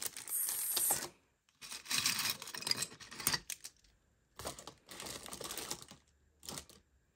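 Thick plastic jewelry bags handled and crinkling, in several short bursts of rustling with pauses between.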